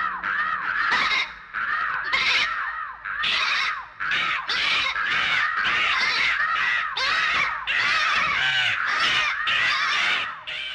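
Cartoon animal cries: a crow cawing while a lamb bleats in distress. The cries come fast, each rising and falling, in runs broken by short gaps.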